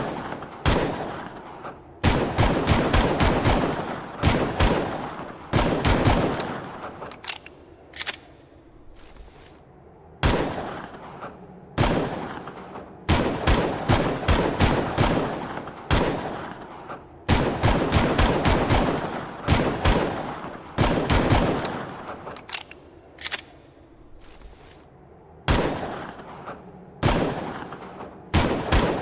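Longslide pistol sound effect firing in quick bursts of about five to eight shots, each burst trailing off in an echo, with pauses of one to two seconds between bursts.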